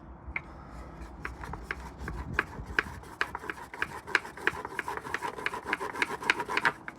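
Two wooden boards rubbed fast back and forth over a tight roll of ash-dusted cotton wool to light a friction fire: a rhythmic rasping with sharp clicks at each stroke, about three a second. The strokes grow stronger from about two seconds in and stop just before the end.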